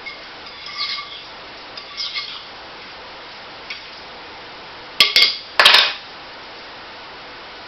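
Metal utensil scraping and clinking against the crock of a slow cooker as shredded chicken is stirred. Two light scrapes with a faint ring come in the first couple of seconds, then two louder clattering scrapes about five seconds in.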